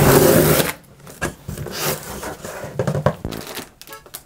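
Packing tape ripped off a cardboard box: a loud tearing rip lasting under a second at the start. It is followed by softer rustling and light knocks as the cardboard flaps are opened and a packaged grocery item is handled.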